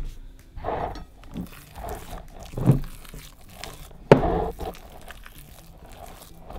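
Thick, sticky cornstarch-and-shampoo slime being stirred and worked with a silicone spatula in a glass bowl as baby oil is mixed in: irregular squelching and scraping. A sharp knock about four seconds in is the loudest sound.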